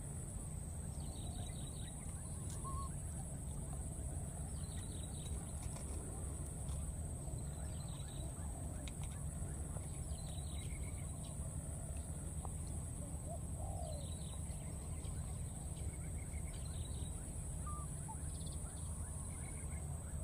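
Outdoor ambience: a steady high-pitched drone and a low rumble, with short bird chirps every second or two.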